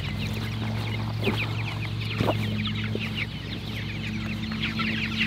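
Flock of chickens clucking and chattering, many short calls overlapping, over a steady low hum.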